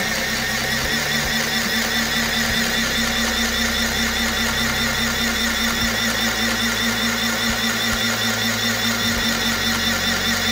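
Mini portable electric sewing machine, switched on with its push button, running at a steady speed and stitching through fabric: an even motor hum with a fast, regular beat of the needle mechanism.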